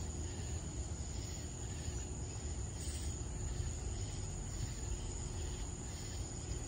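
Night insects calling in grass: a steady high-pitched trill with softer chirps pulsing under it about once a second, over a constant low rumble.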